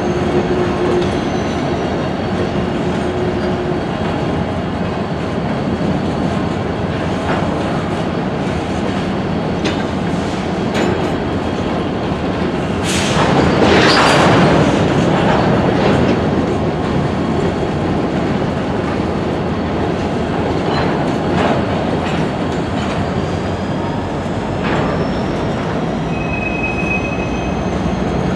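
Freight cars, mostly covered hoppers, rolling slowly through a rail yard: steady wheel-on-rail rumble with occasional clicks over rail joints. About halfway through the noise swells louder with a high screech from the wheels.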